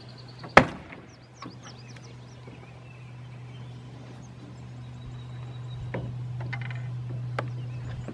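A single sharp knock about half a second in as the plastic hull of a remote-control fishing boat is set down against the fishing boat and onto the water, over a steady low hum. A few short bird chirps follow, and there are a couple of faint clicks later.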